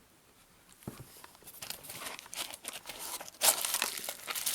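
Packaging being crinkled and torn open by hand, irregular rustling that starts after a quiet moment and a single click, growing louder about three and a half seconds in.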